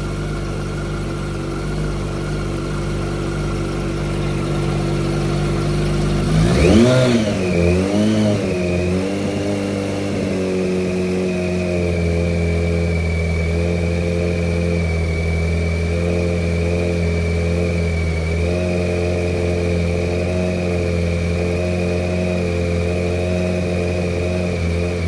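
Yamaha R1 inline-four engine idling steadily. It is blipped once about six seconds in: the revs rise and drop back with a brief wobble, then settle to idle. It is warming up after an oil leak at the cam chain tensioner was fixed, run to hear whether a ticking noise remains.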